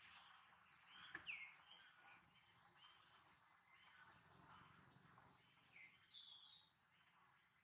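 Faint, steady high-pitched insect buzz from the surrounding vegetation, with a sharp click about a second in, then a short falling chirp, and a louder high chirp that falls in pitch about six seconds in.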